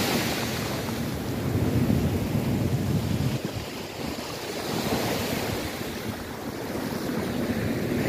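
Sea surf breaking and washing in over a shingle beach, swelling and easing every few seconds, with wind rumbling on the microphone.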